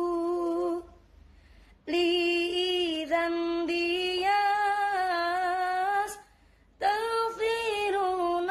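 A woman singing an Islamic devotional song (sholawat) unaccompanied, in long held, ornamented phrases. She pauses briefly about a second in and again about six seconds in.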